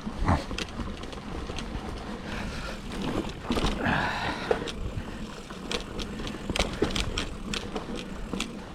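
Full-suspension mountain bike rolling along a dirt singletrack: steady tyre noise broken by many sharp clicks and knocks from the chain and frame rattling over bumps, with a harsher patch of rolling noise about four seconds in.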